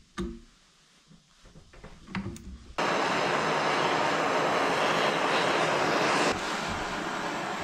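A couple of light metal clanks, then a handheld gas torch flame comes on suddenly about three seconds in with a loud, steady hiss as it heats a seized pedal-cluster shaft clamped in a vise; near the end the hiss drops to a softer level.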